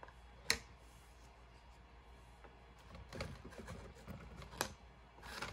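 Light handling noises of small 3D-printed plastic model parts on a cutting mat: a sharp click about half a second in, then a cluster of soft knocks and scrapes about three seconds in with another sharp click, and a short rustle near the end.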